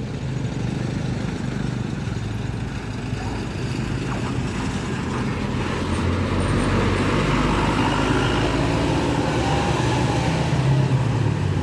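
Road traffic with buses passing close by: a steady low engine hum and tyre noise, growing louder about halfway through as a heavy vehicle draws near.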